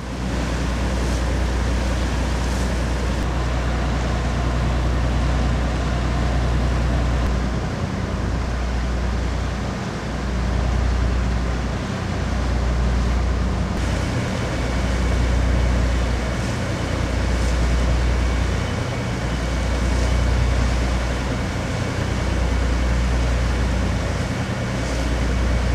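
A boat's engines running under way: a steady low drone with a rushing noise over it, swelling and easing about every two seconds.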